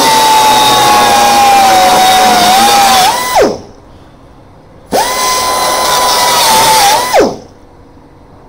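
Pneumatic grinder whining as it grinds off tack welds on sheet steel. Its pitch sags slightly as it bites, and it winds down when released. It runs twice: a long pass, a short pause, then a second pass of about two seconds that also spins down.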